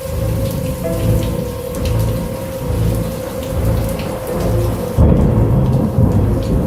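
Thunderstorm: steady rain with rolling thunder, and a louder thunder rumble that breaks in suddenly about five seconds in. A steady low tone runs underneath.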